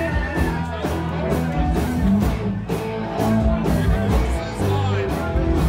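Rock song playing, with singing and guitar over a steady beat.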